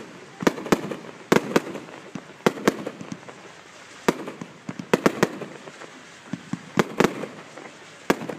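Fireworks going off: an irregular run of sharp bangs, sometimes two or three in quick succession, over a steady hiss, as white spark fountains rise and small red and green star shells burst.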